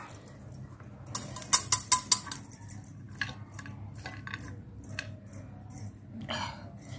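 Metal spatula scraping and clinking against a kadai as fried bitter gourd slices are scooped out onto a plate. There is a quick run of sharp clinks a little over a second in, then scattered single taps.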